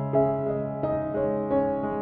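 Background music: a gentle keyboard melody whose notes change about every half second over held low notes.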